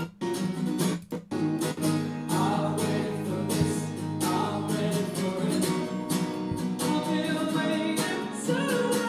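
Gibson acoustic guitar strummed while a male vocalist sings over it, an intimate acoustic rock performance. The music cuts out briefly twice in the first second or so, then runs on.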